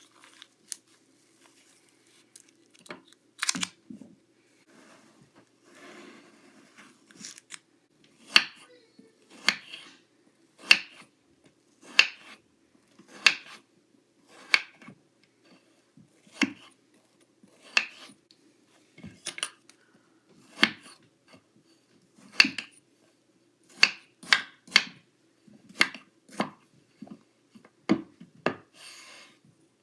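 Kinetic sand being cut, a string of short, crisp crunching strokes. They are sparse at first, with a softer scraping stretch, then come about one every second or so, over a faint steady low hum.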